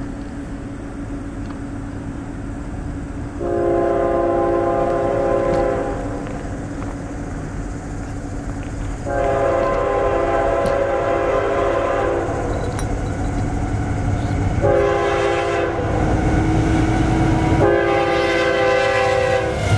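Multi-chime air horn of an approaching CSX freight locomotive sounding the grade-crossing signal: long, long, short, long, the last blast still sounding as the train reaches the crossing. Underneath is the low rumble of the oncoming train, growing near the end.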